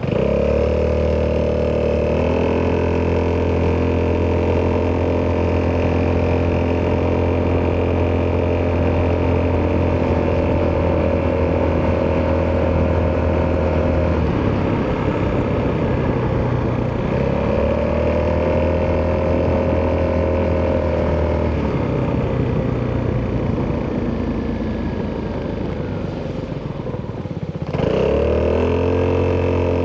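Italjet Dragster 200's single-cylinder four-stroke engine through an Akrapovic exhaust, pulling at a steady pitch under throttle. The throttle is eased off briefly about halfway through, then again for several seconds later on. The engine picks up sharply again near the end.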